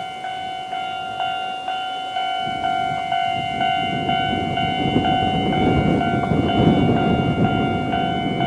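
Japanese level-crossing alarm bell of the older electronic type, striking a little over twice a second. From about two and a half seconds in, a Konan Railway 7000-series electric train rumbles through the crossing, loudest near the end.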